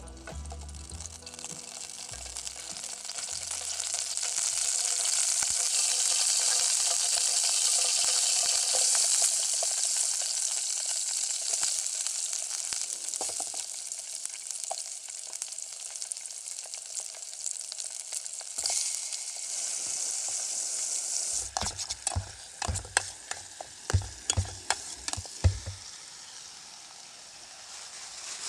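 Food frying in a pan, a steady sizzle that builds over the first few seconds and stops about three-quarters of the way through, followed by a run of sharp clicks and knocks.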